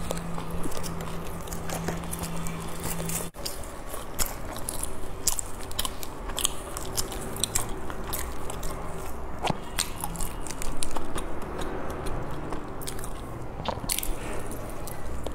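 Close-miked chewing and wet mouth sounds from eating a soft green pastry filled with salted egg yolk and pork floss, full of small clicks and smacks, with a fresh bite near the end. A low hum in the first three seconds stops with a brief dropout.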